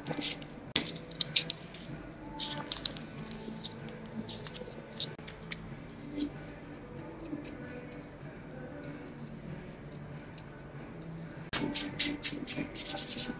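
Scattered crinkles and clicks of small paper wipe packets and finger wraps being handled during gel polish removal, then, near the end, rapid scratchy strokes of a nail file worked back and forth on a fingernail.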